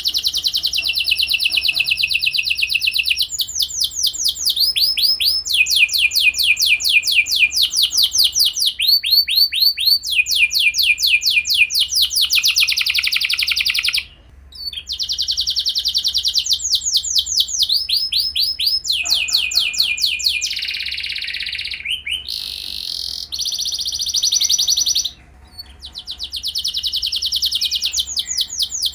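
Domestic canary singing a long song of fast rolling trills, each phrase repeating one note many times a second before switching to the next. The song breaks off briefly about halfway and again near the end.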